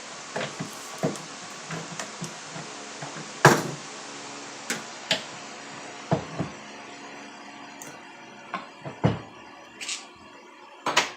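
Scattered metal knocks and clicks from a chainsaw's guide bar and chain being lifted off and set down, over a steady hum; the loudest knock comes about three and a half seconds in.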